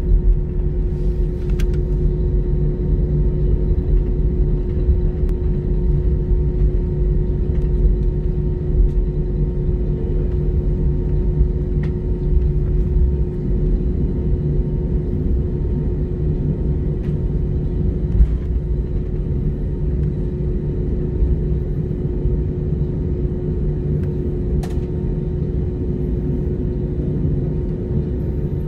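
Airbus A319 cabin during taxi: a steady low rumble of the engines at idle and the cabin air, with a constant hum tone and a few faint clicks.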